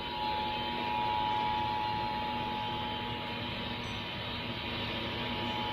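Emergency Alert System attention signal: the steady two-tone alert, 853 Hz and 960 Hz sounding together, carried over a broadcast with a steady hiss behind it.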